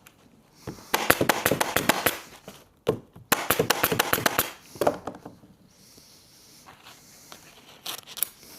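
Elastic sofa webbing pulled through and rubbing against the other straps, making two rasping runs of quick crackles, each about a second and a half long, with a few light ticks near the end.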